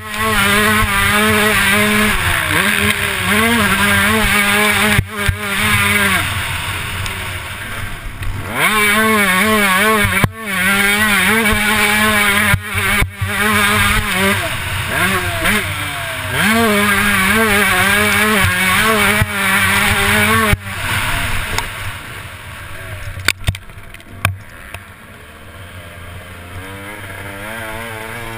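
Motocross bike engine heard from the rider's helmet camera, revving hard through the gears with sudden throttle chops every few seconds. In the last several seconds it eases off to a quieter, wind-dominated run, then begins to build again near the end.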